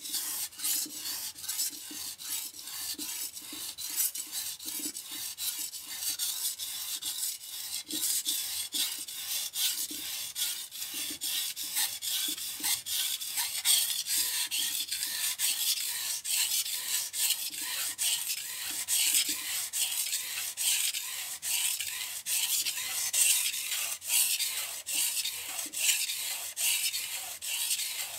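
Chef's knife being sharpened on a whetstone: the blade is drawn back and forth over the stone in a steady, even run of gritty scraping strokes.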